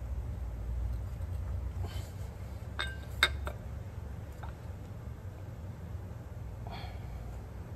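Steel timing chain and cam sprocket of an LS engine clinking as the sprocket is worked onto the camshaft: a few light metallic clinks with one sharp one about three seconds in, and a faint scrape near the end.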